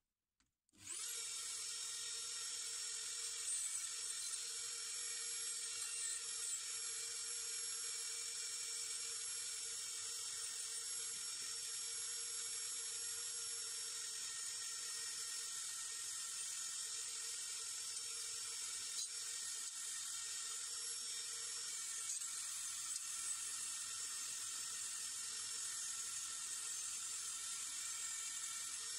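Small high-speed electric power tool switched on about a second in, then running with a steady high whine.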